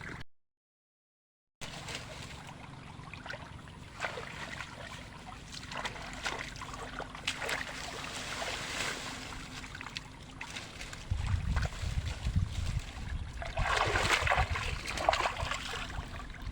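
Shallow water trickling and splashing as someone wades and works in a flooded field, with scattered small knocks. A low rumble comes in past the middle, with a couple of louder splashy swells.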